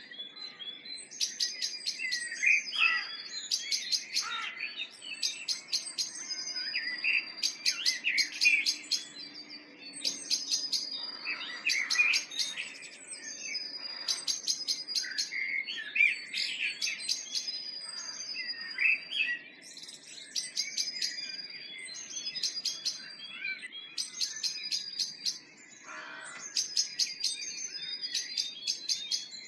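Spring dawn chorus of songbirds: several birds singing at once, with one short, trilled song phrase repeated every second or two.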